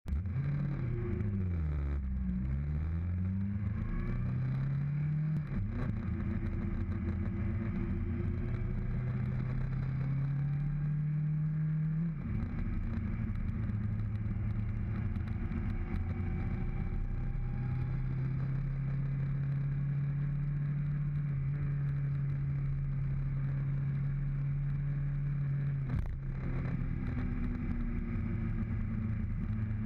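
Kawasaki GTR1400's inline-four engine pulling up a mountain road. Its note climbs and drops back sharply twice, about five and twelve seconds in, as it changes up through the gears, then holds a steady cruising pitch with a brief dip near the end.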